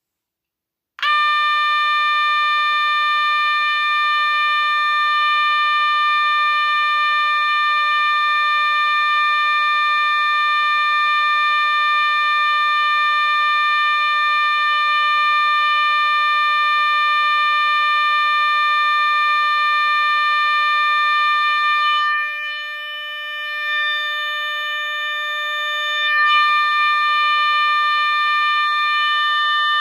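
SFC Nugelec 121001 fire alarm sounder from 1995 sounding one continuous, steady, shrill tone. It starts about a second in and holds unbroken, going quieter for a few seconds about two-thirds of the way through before coming back at full level.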